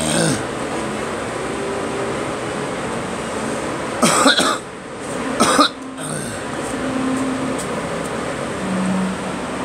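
A person coughing: two short, harsh coughs about four and five and a half seconds in, over a steady background noise.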